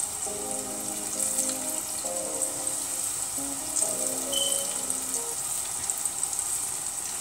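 Battered chicken strips frying in hot olive oil in a pan: a steady, high sizzle. Soft background music plays over it until about five seconds in.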